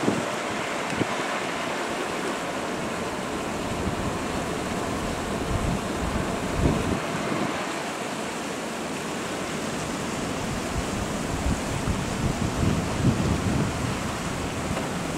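Wind buffeting the microphone in irregular low rumbling gusts, over a steady rushing noise.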